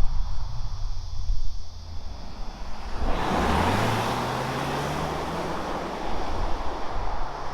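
2020 Volvo XC60 T8 Polestar Engineered's 2.0-litre turbocharged and supercharged four-cylinder accelerating. About three seconds in, a rush of noise swells up and the engine note rises steadily in pitch for about two seconds, then settles back into a low rumble. The exhaust note is very quiet, with no sports exhaust.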